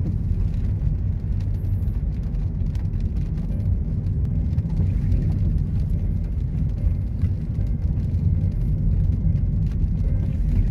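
Car cabin noise while driving on a wet road in the rain: a steady low rumble of engine and tyres, with scattered light ticks of raindrops hitting the windscreen.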